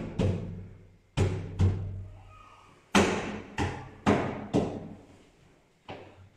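Wooden door trim being knocked into the door frame with the flat of the hand: a series of about eight dull thumps, loosely in pairs, each ringing out for about a second through the hollow wooden casing.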